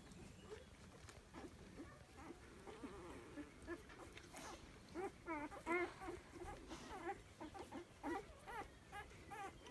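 Newborn puppies squeaking and whimpering in short, high cries while nursing, loudest about five to six seconds in, with another run of squeaks near the end.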